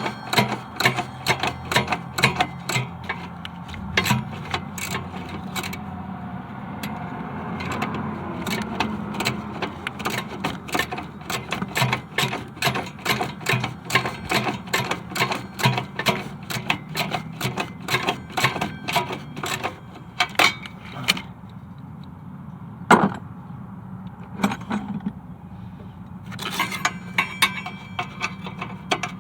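Hand ratchet clicking in quick repeated strokes, about two to three clicks a second, as bolts are worked loose on an engine. The clicking thins out for a few seconds past the middle and picks up again near the end, over a steady low hum.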